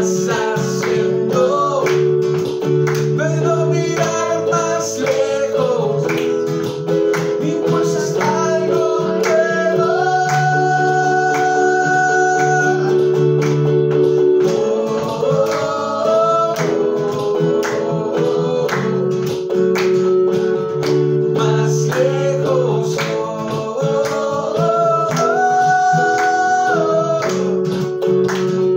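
Acoustic guitar strummed steadily while voices sing a slow melody with long held notes.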